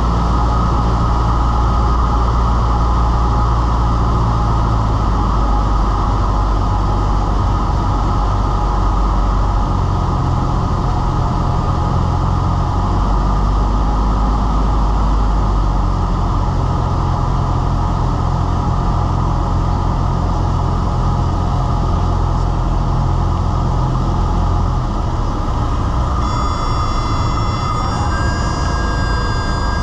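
Cessna 172's engine and propeller running steadily in the cockpit on final approach, with a few small shifts in engine pitch as power is adjusted and a drop in power near the end. Near the end a high steady whistling tone comes in, typical of the stall warning horn sounding in the landing flare just before touchdown.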